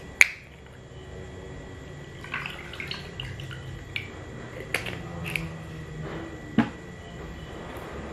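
Thick cappuccino jelly drink poured from a bottle into a mug, a run of small wet plops and splashes in the middle. A sharp click comes near the start and a single knock near the end.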